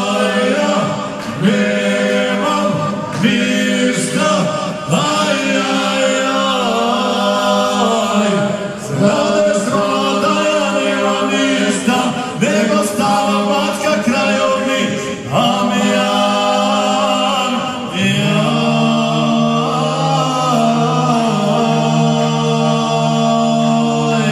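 Two men singing a folk song together through microphones and a PA, unaccompanied, with long held notes.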